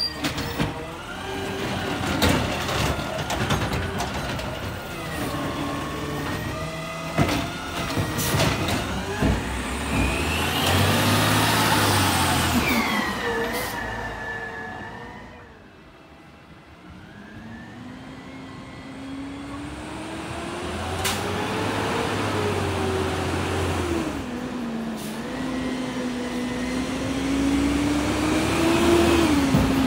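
Garbage truck with an automated side-loader arm working curbside pickup, on a natural-gas engine: knocks and clanks as the arm handles a cart, and the engine revving up and down. Quiet for a moment mid-way, then the engine rises in pitch again twice as the truck pulls up.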